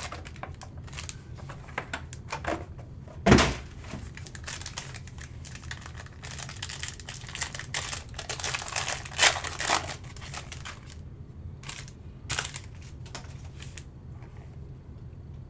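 Trading card packs being opened and handled: wrappers crinkling and tearing, with scattered clicks of cards and a louder snap about three seconds in, over a low steady hum.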